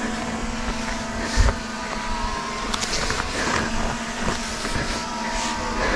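Steady motor buzz with several held tones, like a camera drone hovering near the abseiler, over wind noise on the body-worn camera's microphone. A single thump about one and a half seconds in, and brief rustles of rope and gear.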